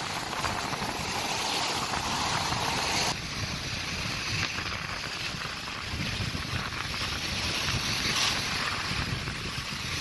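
Rough sea surf washing up the beach, with wind buffeting the microphone in a gusty low rumble. The higher hiss of the surf softens about three seconds in.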